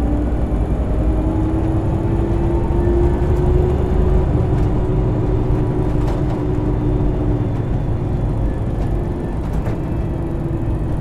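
A Scania L94UB city bus under way. The whine of its ZF Ecomat 5HP600 automatic gearbox sits over the diesel engine's rumble, rising slowly in pitch for the first few seconds and then holding steady.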